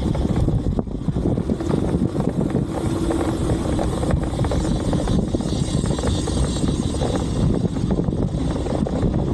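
Steady low rumble of a running motor.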